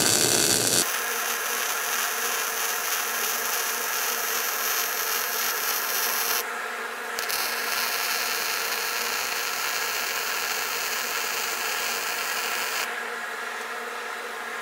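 MIG welder arc crackling and buzzing steadily as weld is laid on the worn end of a lathe clutch shaft to build it up for re-machining. It runs in two passes of about six seconds each, with a brief break between them, and stops near the end.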